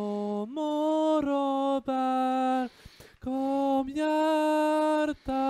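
A single teenage boy's voice, recorded on its own from within a choir, singing a Swedish song unaccompanied in long held notes, sung in tune. It breaks off briefly for a breath about three seconds in, then goes on.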